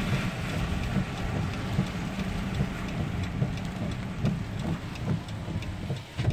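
Heavy rain hitting a car's roof and windshield, heard from inside the cabin, over a steady low rumble of engine and road noise.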